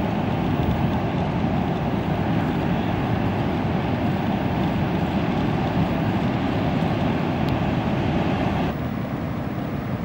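Heavy ocean surf breaking: a steady rushing noise of big waves and whitewater, a little quieter from about nine seconds in.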